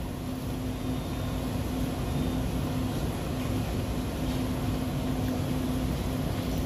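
Steady room hum of ventilation and machinery in a fast-food restaurant, an even rushing noise with a low steady tone running under it.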